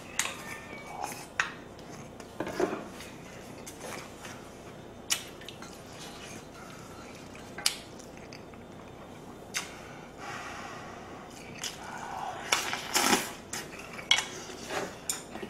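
Wooden spoon and chopsticks knocking against a ceramic bowl and a stainless steel pot, a dozen or so sharp separate clinks, with the sounds of someone eating in between and a busier cluster of clinks near the end.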